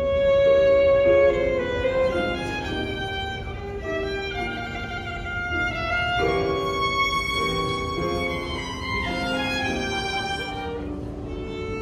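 Background music led by a violin playing a melody, with a loud held note in the first second or so.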